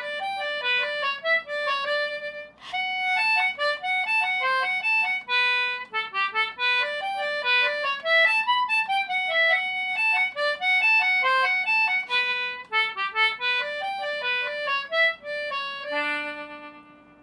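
Concertina playing a quick reel melody, note after note, finishing on a held chord that fades out near the end.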